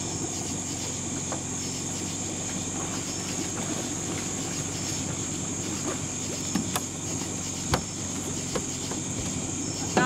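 Steady, even chorus of night insects over a continuous low mechanical hum. A couple of sharp knocks land about seven and eight seconds in.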